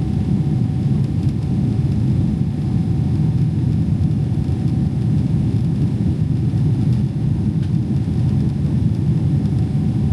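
Steady cabin roar of a Boeing 777-300ER in flight, its GE90 engines and airflow heard from inside the cabin as a low rumble with a faint steady hum above it.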